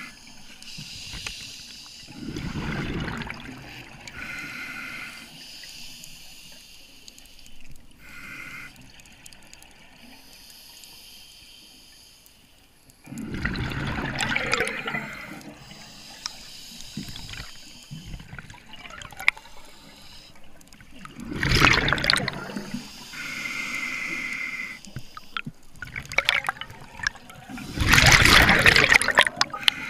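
Scuba diver breathing through a regulator underwater: quieter inhalations with a thin hiss, and four loud rushes of exhaled bubbles spaced several seconds apart.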